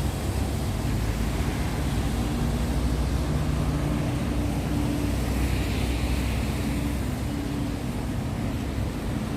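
A steady low rumble with a faint hum running through it.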